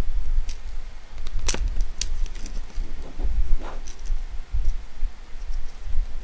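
Plastic doll parts clicking and knocking as a Monster High Create-a-Monster doll's limbs are handled and pushed into their joints, over a low rumble of handling. A few sharp clicks stand out, the loudest about one and a half and two seconds in.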